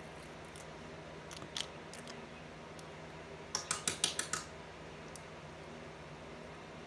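Small plastic clicks from handling a plastic spice jar as its cap comes off: a few faint clicks, then a quick run of about six sharp clicks and taps about three and a half seconds in.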